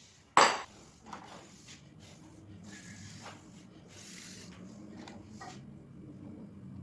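Kitchenware handled on a countertop: one sharp knock about half a second in, then lighter clicks and rubbing as the metal cake pan and utensils are moved.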